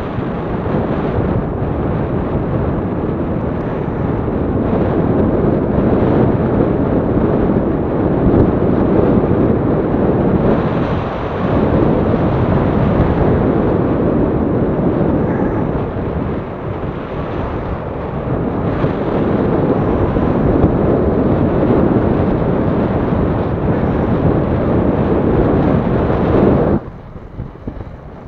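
Wind buffeting the camera microphone on a moving recumbent trike, a loud, rough rushing that ebbs and swells, then falls away abruptly near the end.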